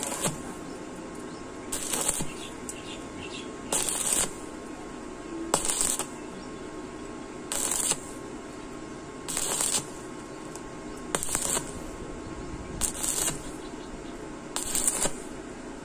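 Stick-welding electrode arcing on thin 1.2 mm galvanized steel box tubing in a stop-start rhythm: about eight short sizzling bursts, each about half a second long and roughly two seconds apart. The arc is struck and broken again and again, the stitching technique for welding thin-walled steel without burning through.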